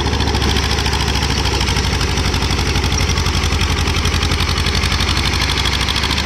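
TAFE 30 DI tractor's diesel engine running steadily with an even, rapid pulsing beat, working the tractor through a flooded paddy field.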